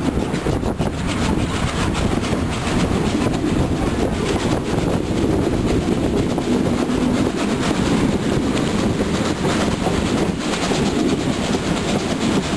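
A steam train's coaches running along the track, heard from an open carriage window as a steady, loud rumble with some clatter of the wheels.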